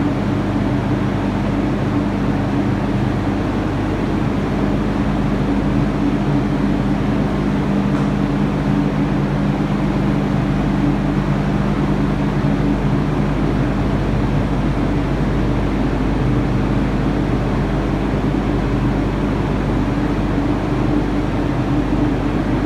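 Generator brake air compressor running: a steady mechanical hum with a low, even tone and no pauses or strokes.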